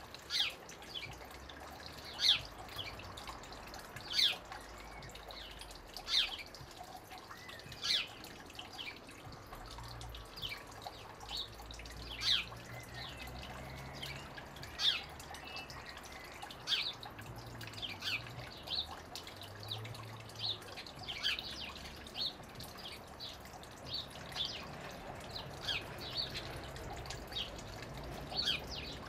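House sparrows chirping, short sharp calls every second or two, over the steady trickle of a thin stream of water falling into a small garden pool.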